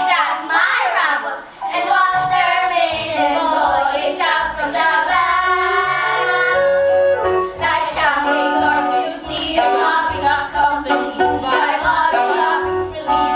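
Female voices singing a musical-theatre song over a musical accompaniment.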